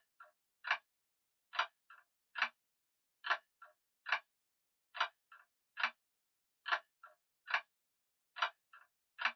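Grandfather clock ticking steadily, a sharp tick a little under once a second. Every other tick is followed closely by a fainter second click, giving an uneven tick-tock.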